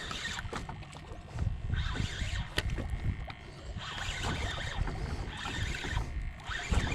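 Wind buffeting the microphone on a boat at sea, with water washing against the hull in surges every couple of seconds and a single sharp click about two and a half seconds in.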